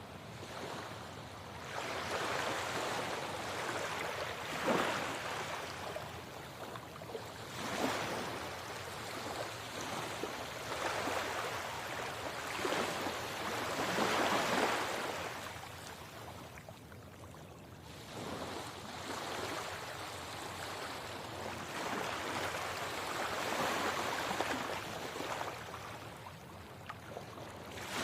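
Sea waves washing onto a shore: a steady rush of surf that swells and ebbs every few seconds, with the biggest wave breaking about fourteen seconds in.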